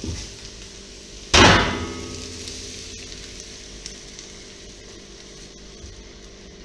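A glass pan lid clanks down once on the gas hob's grate about a second and a half in, ringing as it fades. Then fried onion is scraped from one frying pan into another, over a faint sizzle of food in the pan.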